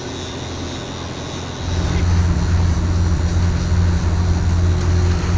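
A catamaran's diesel engine running with a steady low hum under way, getting louder about two seconds in.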